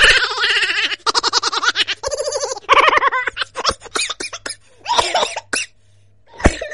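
People laughing in several bursts, mixed with some talking.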